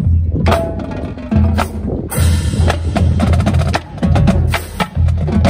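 Marching drumline playing a cadence: snare drums, tenor drums and bass drums in a driving rhythm. There is a cymbal crash about two seconds in and a run of rapid snare strokes after it.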